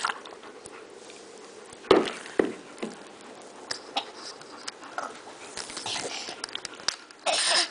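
Baby's small mouth and breath noises while drinking and moving about, with a few short knocks and one loud rustle near the end.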